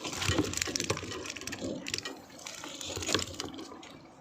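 Freshly caught fish splashing and flapping in the water of a keep net or bucket, a run of irregular wet slaps and patters.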